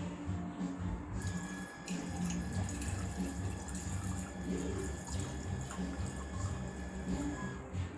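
Water running in a steady stream, starting about a second in and stopping near the end, while a honey lemon drink is being mixed.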